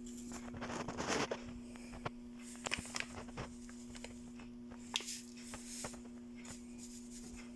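A measuring teaspoon scooping and tipping active dry yeast: soft rustling about a second in, then scattered light clicks and taps. A steady low electrical hum runs underneath.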